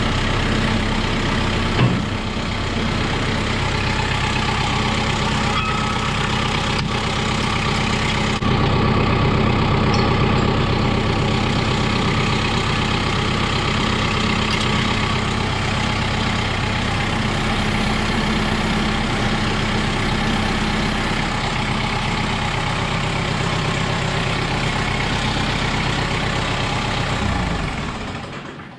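Kubota M6060 tractor's four-cylinder diesel engine running steadily, with a sharp click about two seconds in; near the end the engine is shut off and runs down to quiet.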